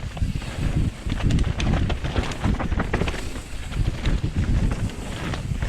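Wind buffeting the microphone, with a heavy, uneven rumble and many sharp clicks and rattles, as a mountain bike is ridden fast down a dirt trail.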